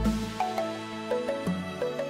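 Gentle instrumental background music: short repeated notes over a held low note.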